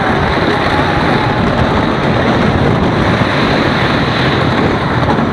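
Wooden roller coaster in motion heard from a rider's seat: a loud, steady rush of wind over the microphone mixed with the train rumbling along the wooden track on a drop.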